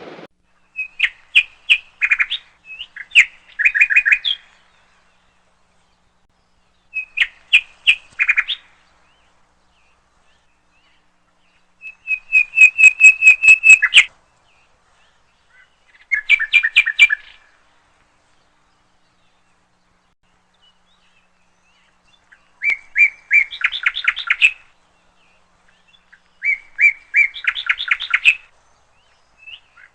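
Small bird chirping in bursts of quick, high, repeated notes, about seven bursts a few seconds apart with silence between.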